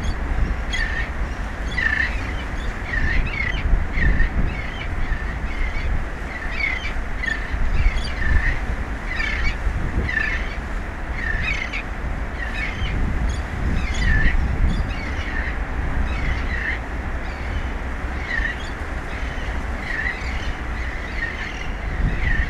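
Birds calling over and over: short calls repeated roughly once a second, over a steady low rumble of wind on the microphone.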